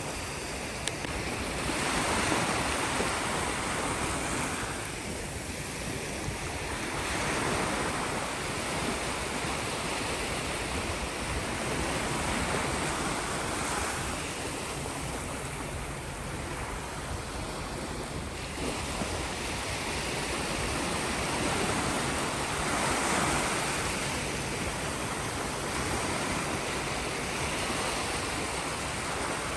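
Sea waves washing onto the shore, a steady rush of surf that swells and eases every few seconds.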